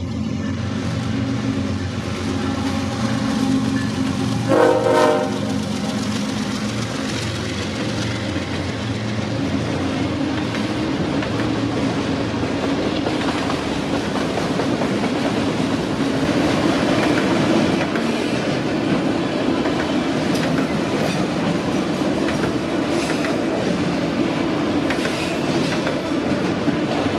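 BNSF freight train passing at speed, its diesel locomotives running at first, with a short horn blast about five seconds in. Then the long string of autorack cars rolls by, wheels clacking over the rail joints.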